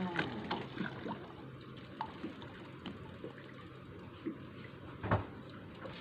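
Water sloshing and splashing, with scattered small knocks and a louder knock about five seconds in.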